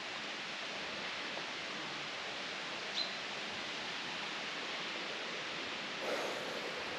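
Steady, even rushing outdoor noise with no distinct events, apart from a faint short click about three seconds in.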